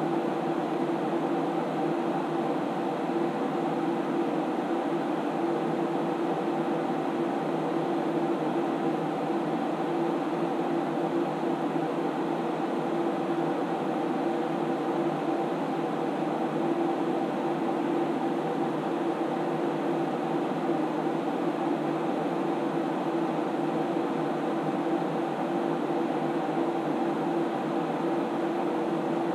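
Cooling fans of an SGI Onyx2 running steadily: a constant whirring hum with a couple of steady tones in it.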